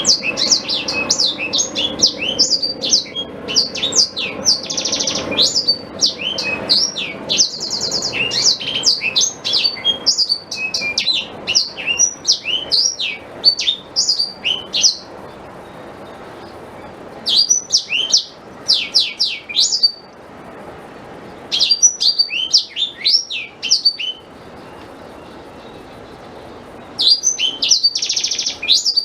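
Blackthroat (black-throated canary) singing: fast, varied high twittering phrases of rapid chirps and trills, broken by pauses of one to a few seconds.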